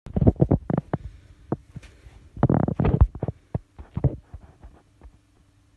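Muffled thumps and rubbing from a hand handling a phone's microphone while it is moved about, loudest in the first four seconds, over a faint steady hum.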